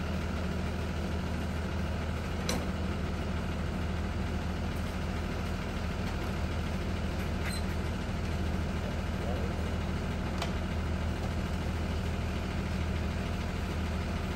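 School bus engine idling steadily with a low hum, with a few brief sharp clicks along the way.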